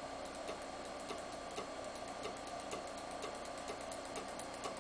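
Floppy disk drive head stepper motor stepping the CNC's z-axis, a quick run of small sharp ticks, several a second, one per step.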